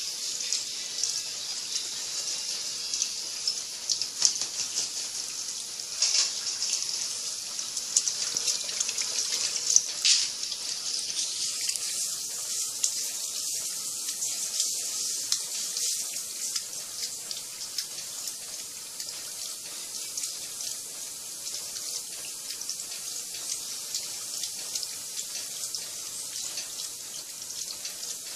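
Water running steadily into the tub of a top-loading washing machine as it fills to a high water level, with a few louder splashes in the first half.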